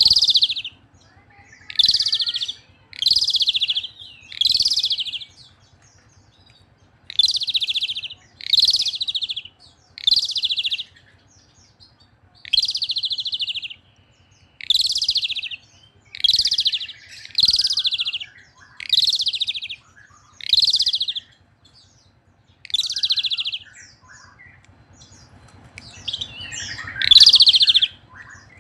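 Asian pied starling (jalak suren) in full voice, giving loud, harsh, rasping calls about every one to two seconds, with a couple of longer pauses between runs.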